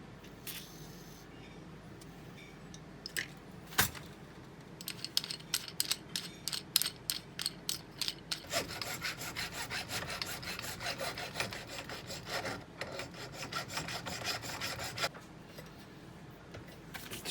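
Quick back-and-forth rubbing strokes by hand on the metal vise, about three a second, running on for several seconds before stopping. A single sharp knock comes just before the strokes begin.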